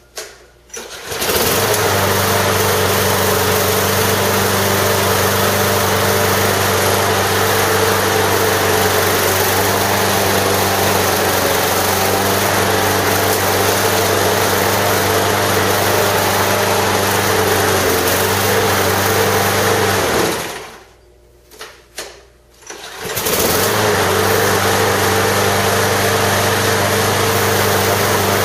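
Troy-Bilt 6.5-horsepower self-propelled lawnmower engine started by pull cord and catching within a second, then running steadily. It dies away about two-thirds of the way through, gets a couple of quick pulls, and starts again, running smoothly: fresh gas has it running like new after sitting all winter.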